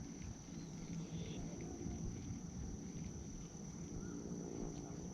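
Insects singing at a steady high pitch over low rumbling outdoor noise, with one short bird chirp about four seconds in.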